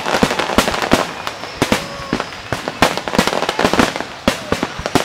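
Aerial fireworks bursting overhead: a rapid, irregular run of sharp bangs and crackles, many shells going off close together.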